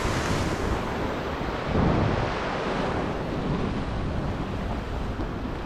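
Sea waves breaking and washing over the rocks, with wind buffeting the microphone; a louder surge of surf comes about two seconds in.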